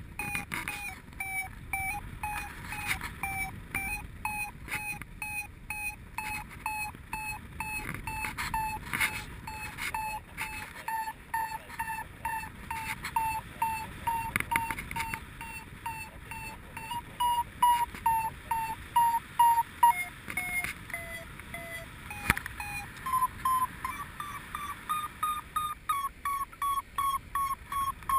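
Paragliding variometer beeping in short regular pulses, about two a second, its pitch drifting with the lift: the climb tone of a glider soaring in rising air. About three-quarters of the way through the beeps drop lower for a couple of seconds, then jump higher and come faster, signalling a stronger climb.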